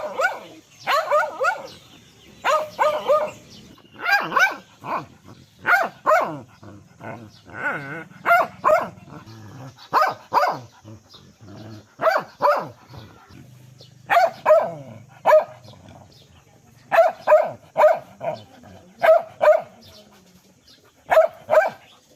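Dog barking repeatedly in quick runs of two to four barks, with short pauses between the runs.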